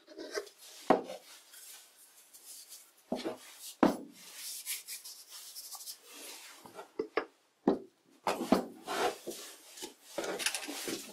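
Turned wooden handle, slick with cutting fluid, being pushed and twisted into the bored hole of an oak mallet head: wood rubbing and scraping on wood, broken by several sharp wooden knocks.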